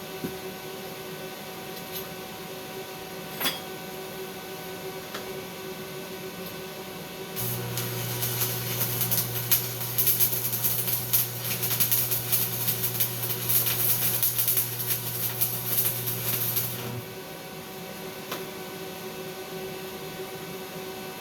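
Stick-welding arc with a 1/8-inch 6013 electrode at 90 amps: struck about seven seconds in, it crackles and sizzles over a steady hum for about ten seconds, then breaks off. Before and after, only a steady machine hum and a few single clicks.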